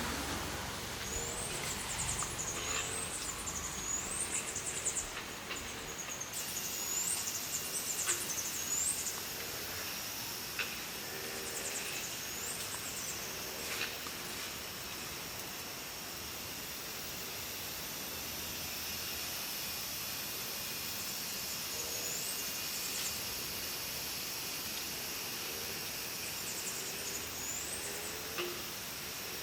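Birds singing in short, high, chirping phrases that repeat every few seconds, over a steady high hiss of outdoor background noise.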